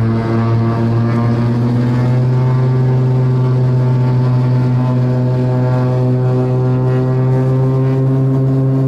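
Cessna 402's twin piston engines at takeoff power, heard from inside the cockpit: a steady, deep drone with a stack of overtones. Its pitch creeps up slightly over the first few seconds and then holds as the takeoff roll begins.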